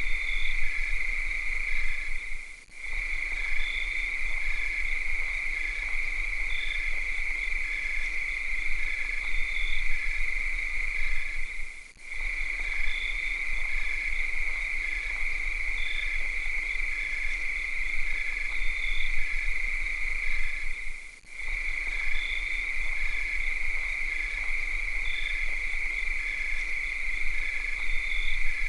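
A chorus of cicadas droning in one steady high-pitched buzz, dropping out briefly about every nine seconds, with faint regular chirping beneath.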